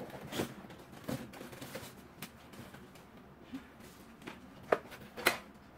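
Hands handling a sandwich maker's box and its packaging: scattered rustles and light taps, then two sharp knocks about half a second apart near the end.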